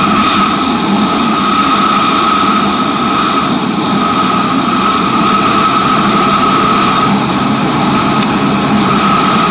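Four-cylinder Suzuki J20A car engine of a racing lawn tractor running steadily at cruising speed, heard from on board with wind rush.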